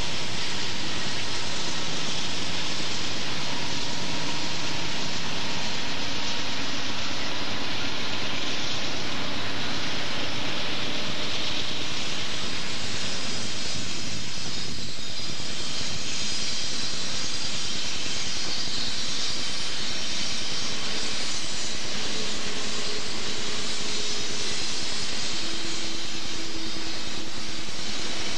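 Diesel freight locomotives on eastbound BNSF trains working upgrade, a steady heavy roar of engines mixed with wheel and rail noise. It dips briefly about halfway through, where one train gives way to the next, and as double-stack container cars roll past near the end.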